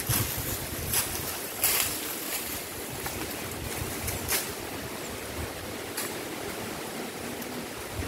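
Wind blowing on the microphone, with a low rumble and hiss, and a few short sharp rustles, the loudest about a second and a half in and again past four seconds.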